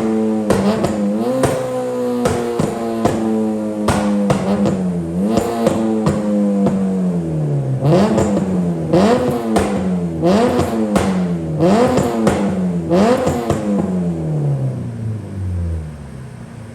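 Honda K20 four-cylinder engine in a K-swapped Civic EJ9 revving high on a rolling road: the revs sink slowly, then about seven quick blips rise and fall in a row, and near the end the revs run down toward idle. Background music with a steady beat plays over it.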